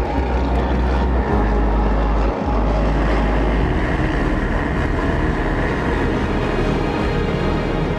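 A pack of four-stroke motocross bikes accelerating hard at full throttle off the start, their engines running together in a loud, steady din, with one bike's engine close up.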